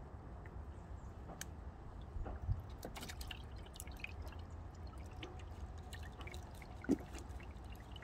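Water dripping and trickling from a wet mesh fish trap shaken out over a basin of water, with loaches dropping and splashing into the basin. Two short knocks stand out, one about two and a half seconds in and one near the end.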